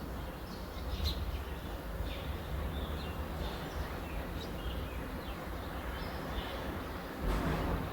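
Small birds chirping and calling repeatedly, short high chirps and whistles, over a steady low rumble of background noise; a louder rush of noise swells up near the end.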